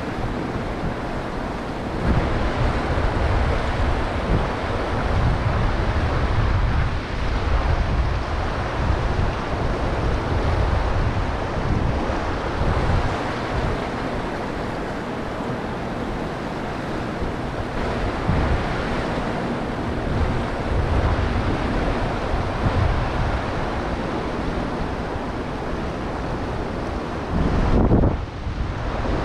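Fast river water rushing through a rocky riffle, with gusty wind buffeting the microphone in low rumbles.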